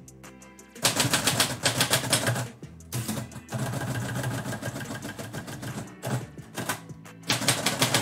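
Manual typewriter typing in quick runs of key strikes, starting about a second in with a short pause near the end, over background music.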